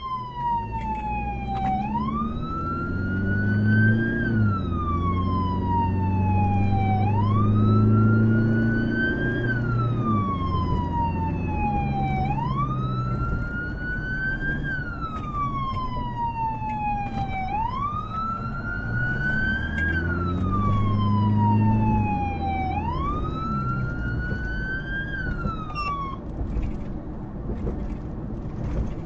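Rescue vehicle's siren wailing: the tone rises quickly and then falls slowly, repeating about every five seconds, and cuts off near the end. Engine and road noise run underneath.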